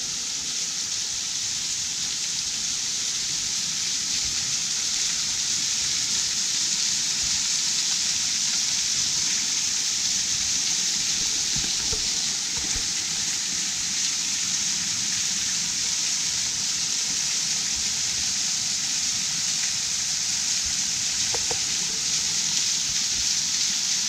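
Waterfall splashing: a steady, even hiss of falling water.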